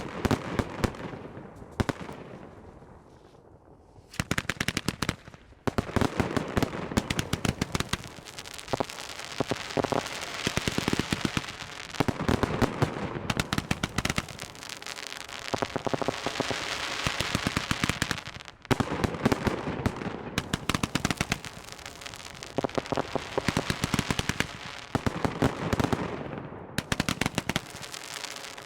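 Aerial fireworks display firing a dense barrage: rapid volleys of bangs and crackling, many reports a second, with a short lull a couple of seconds in before the volleys pick up again.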